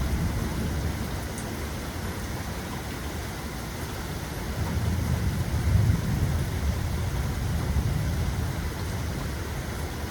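Steady rain falling, with a low rumble of thunder that swells about halfway through and then fades.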